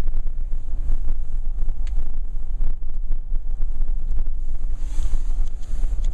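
Wind buffeting the microphone outdoors after a blizzard: a loud, unsteady low rumble, with a brief rise of hiss about five seconds in.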